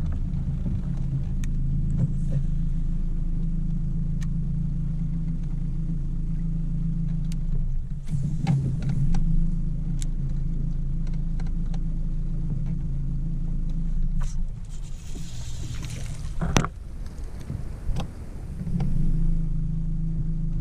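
Bow-mounted electric trolling motor on a bass boat humming steadily, falling away for a few seconds near the end. Near the end there is a splashy hiss and a sharp click as a small bass is landed.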